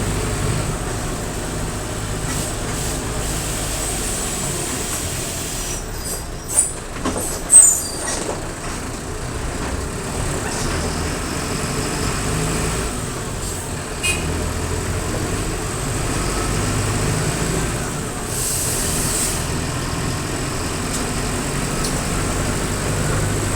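Mercedes-Benz OF-1722M bus's diesel engine running under way, with a faint steady high whistle over the engine note. A couple of sharp clatters come about seven seconds in and a short air hiss, typical of the air brakes, near the end.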